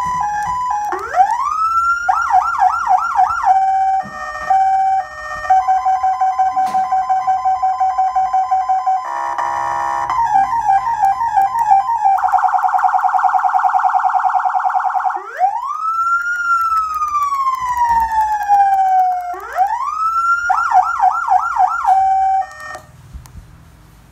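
Electronic emergency-vehicle siren amplifier stepping through its tone patterns. It plays a hi-lo two-tone, rising whoops, rapid yelps, a fast pulsing warble and a long wail that rises and slowly falls. It cuts off suddenly a couple of seconds before the end.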